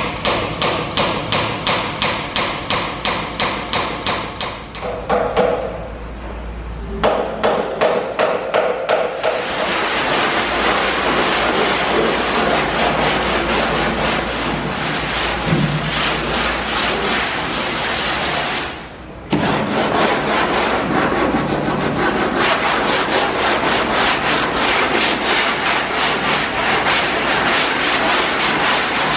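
A small hammer tapping nails into a thin wooden strip on plywood, about three even blows a second, for the first several seconds. Then a sanding block scrubbed by hand back and forth over a plywood hull panel in fast strokes, with a brief pause about two-thirds of the way through.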